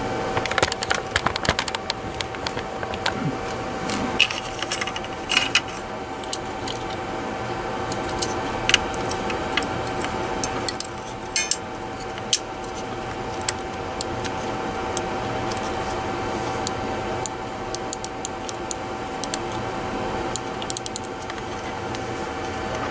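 Small plastic clicks and taps, scattered and irregular, as a wireless mouse's circuit board and shell parts are handled and fitted back together, over a steady background hum with a constant tone.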